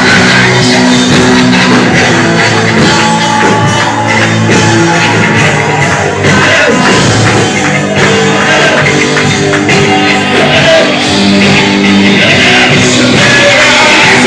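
Loud band music with sustained chords and some singing or shouting over it.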